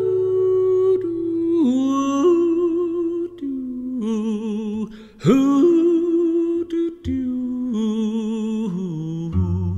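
A voice humming a slow, wordless cowboy-ballad melody, holding notes with vibrato and gliding between them, including one swoop upward about five seconds in.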